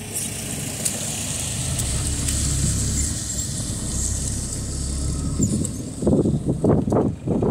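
Car rolling slowly over a muddy, rutted dirt road, heard from inside the cabin: a steady low engine and tyre rumble with a high hiss. Near the end a quick, irregular run of loud knocks takes over as the car moves over rough ground.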